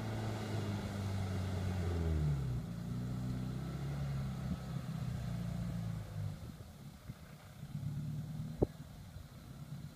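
Suzuki Samurai engine pulling at low speed as the rig crawls up rock ledges. It revs up about two seconds in, then drops back to a quieter, low-speed run after about six seconds. A single sharp knock comes near the end.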